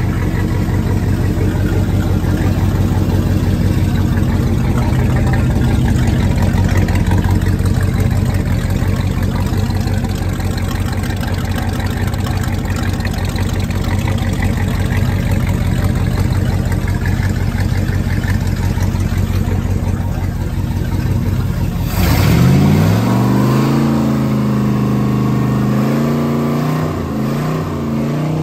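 Freshly rebuilt Chrysler 440 marine big-block V8 running on a test stand with a steady, even beat. About 22 seconds in the sound changes abruptly: the engine speed rises and then holds at a higher pitch as it is revved up.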